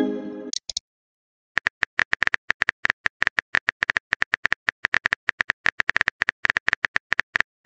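Text-messaging app sound effects: a pitched chime fades out at the start, then after a short pause comes a rapid run of simulated keyboard tap clicks, several a second, from about a second and a half in.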